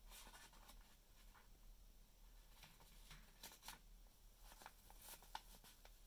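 Faint, scattered crinkling and rustling of newspaper as a parrot shifts about on it and handles it, in short irregular clusters.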